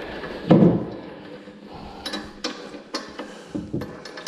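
Metal parts of an eXmark Ultravac leaf-collection attachment knocking and clicking against the mower deck as it is worked into line and pinned in place. A heavier thud comes about half a second in, followed by several sharp clicks.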